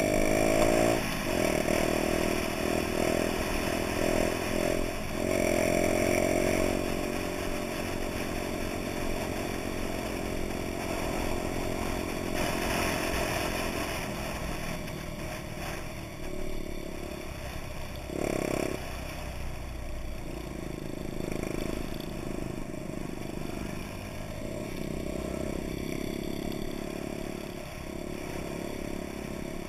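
Honda Dax mopeds' small four-stroke single-cylinder engines running while riding, revving up with rising pitch over the first several seconds, then running steadier, with a short burst of throttle past the middle.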